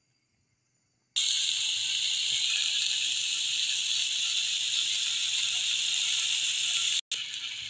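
Frozen chicken sausage slices sizzling in a dry non-stick frying pan, a steady hiss as the thawing meat gives off its water. It starts abruptly about a second in, cuts out briefly near the end, then carries on more quietly.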